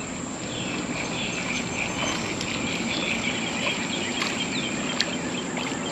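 Insects chirping steadily over an even outdoor hiss, with a few small clicks.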